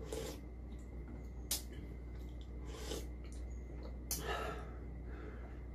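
Spicy beef soup being slurped from a spoon in several short sips, with breathing between them. A sharp click about a second and a half in.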